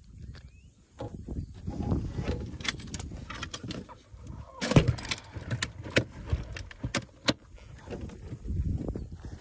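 Fishing gear being handled on an aluminum boat deck: scattered clicks and knocks, the loudest a little before the middle, over low rumbling handling noise that swells near the start and again near the end.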